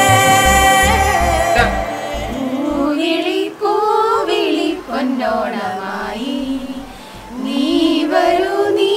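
Music: a held instrumental chord over a steady low beat, giving way about two seconds in to women singing a Malayalam Onam song, a single melody line carried on their voices.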